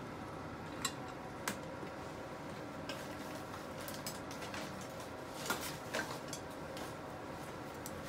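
Stainless steel saucepan of frozen curry udon heating on a radiant electric hob, giving scattered sharp ticks and pops as the frozen block and the pot warm up. The ticks come at irregular intervals over a faint steady hiss.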